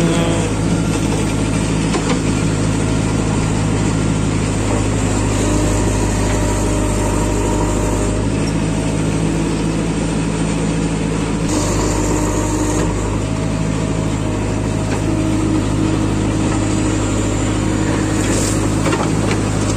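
JCB 3DX backhoe loader's diesel engine running steadily under load while the backhoe digs and swings, its note shifting a few times as the hydraulics work. Near the end comes a brief rush as a bucketful of soil is dumped into the trolley.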